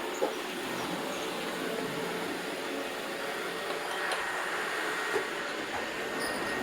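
Robot vacuum cleaners running: a steady whir of suction motor and brushes, with a few light knocks.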